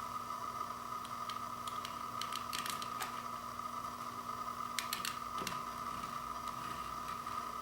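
Handling of a vinyl LP's packaging: a few faint short clicks and light rustles over a steady background hiss and low hum.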